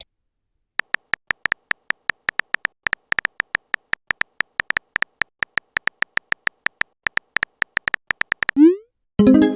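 A rapid run of short, high electronic beeps, all at the same pitch and a few a second, like a text-blip or typing sound effect. Near the end comes a quick rising glide and the start of a short jingle.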